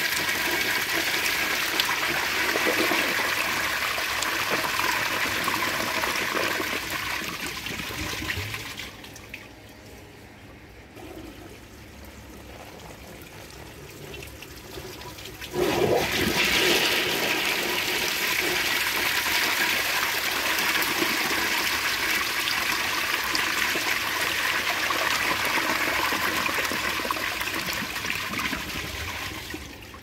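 Standard Madera/Savoy elongated toilet with a mid-height tank flushing, with a loud rush and swirl of water into the bowl. About nine seconds in the rush dies down to quieter running water, then a second flush starts suddenly about halfway through and runs loudly until it fades near the end.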